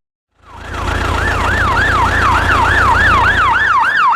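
Emergency-vehicle siren warbling fast, sweeping up and down about three times a second over a low rumble; it starts about half a second in.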